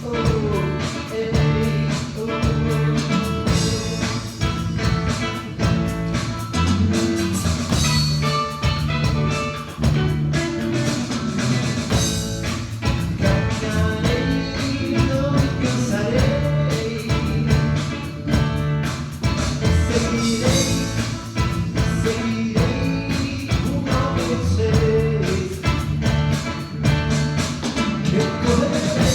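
Instrumental break of a gospel song: a full band with bass and a steady beat.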